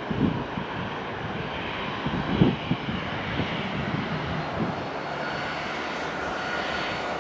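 Jet engines of a Ryanair Boeing 737 running at taxi power: a steady jet hiss, with a faint whine coming in during the second half. A few brief low rumbles sit over it, the strongest a few seconds in.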